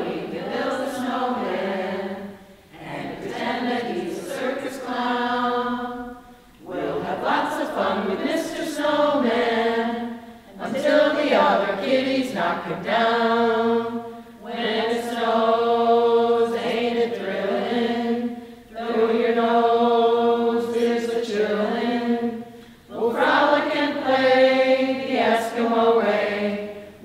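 Mixed group of men and women carolling a holiday song without instruments, in sung phrases of about four seconds with short breaks between them.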